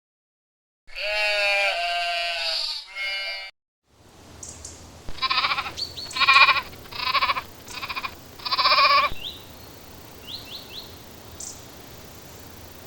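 Sheep bleating: first one long, wavering baa, then after a short pause five shorter bleats in quick succession over a faint steady hiss.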